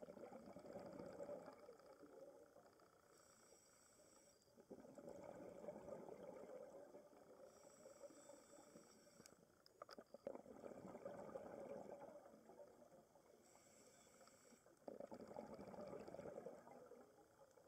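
Scuba diver breathing through a regulator underwater. Four faint, bubbly exhalations come about every five seconds, each lasting a second or two, and a short high hiss of inhalation falls between each pair.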